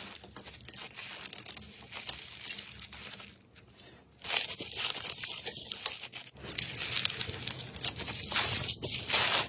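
Slime being squished and stretched by hand, a dense sticky crackling and popping. It pauses briefly about three and a half seconds in, then comes back louder.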